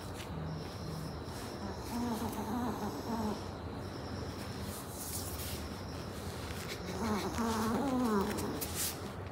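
Soft wavering whimpers from a sleeping Maltese puppy, in two bouts, the first about two seconds in and the second near the end. Behind them a faint high chirping, like crickets, repeats about once a second.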